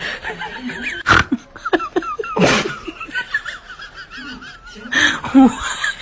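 A person laughing, in several short loud bursts.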